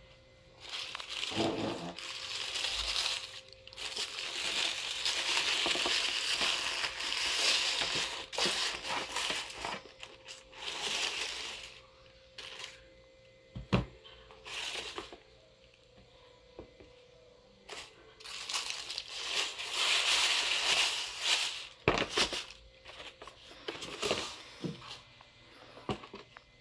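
Tissue paper crinkling and rustling as it is pulled back from shoes in a cardboard shoebox. It comes in long stretches with quieter pauses, and a couple of sharp knocks stand out.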